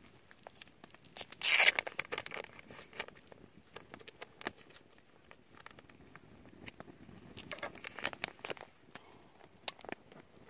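Plastic food packaging being crinkled and torn open, with a louder rustle about a second and a half in and another around eight seconds in, among scattered small clicks and taps.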